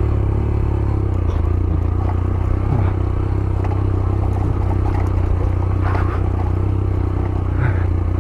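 Yamaha YBR 125G single-cylinder four-stroke engine running at low, steady revs, with clattering and scraping from the bike rattling over rough, rocky ground.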